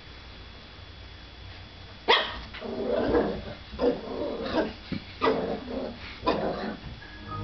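Puppy barking at its own reflection in a mirror: quiet for about the first two seconds, then a string of about seven short barks.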